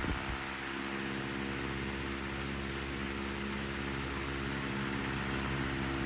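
Hunter CG16 16-inch table fan's electric motor running with a steady electrical hum of several low tones over a light hiss of moving air.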